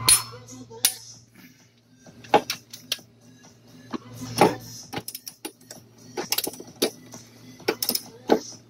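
Scattered sharp metallic clicks and clinks of hand tools working on the cylinder head of a Ford 5.4L V8, some coming in quick clusters, over a low steady hum.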